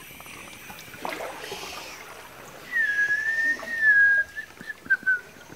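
A person whistling one long, clear high note that starts about halfway through and wavers slightly, then breaks into short notes near the end.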